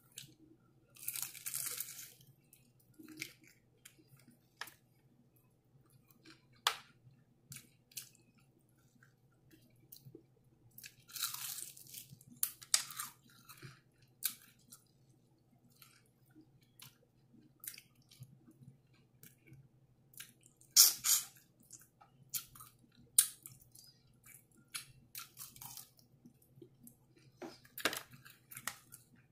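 Close-up eating of crispy fried chicken: bites crunching through the breading and chewing, in irregular bursts of crunches and short clicks, the loudest bite about two-thirds of the way through.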